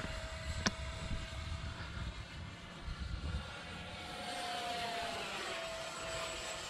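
Freewing F-16 70mm electric ducted fan RC jet flying past, a steady fan whine that rises a little in pitch about four seconds in and then falls away as it goes by.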